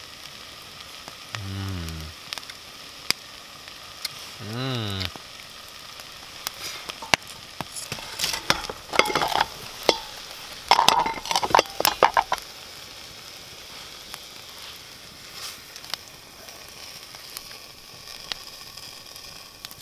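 Steady sizzling hiss of food cooking over a campfire, with a run of clinks and scrapes from a utensil in the pot about eight to twelve seconds in. Two brief low hums of a person, like an appreciative "mmm", come early on.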